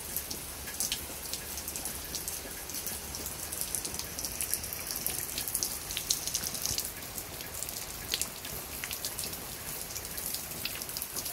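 Heavy rain falling steadily, splashing on wet concrete paving stones and leaves, a constant hiss dotted with many sharp individual drop impacts.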